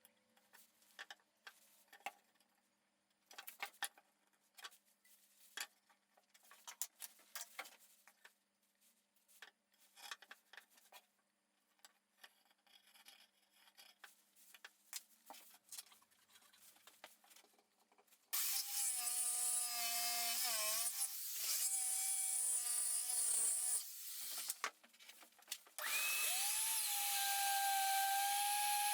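Scattered light knocks and clicks of wood being handled. Then an electric power tool runs loudly for about five seconds, its whine dipping briefly in pitch once. After a short pause it starts again, its whine rising quickly and then holding steady.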